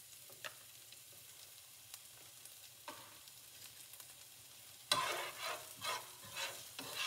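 Sliced onions frying in oil and minced garlic in a frying pan, a faint steady sizzle with a few small ticks. About five seconds in it turns louder and crackly as the onions are pushed and spread around the hot pan.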